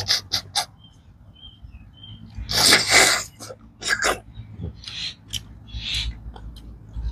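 Loud, hissing slurps of a man sucking cooked freshwater snails (susu) and their sour tamarind broth out of the shells, several in a row. The longest and loudest comes about two and a half seconds in.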